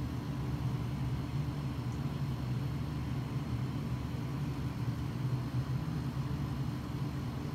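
A steady low mechanical hum that holds the same level throughout, with no distinct events.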